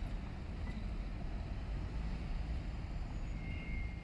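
Road traffic at a level crossing: a steady low rumble of cars, with a faint brief high tone near the end.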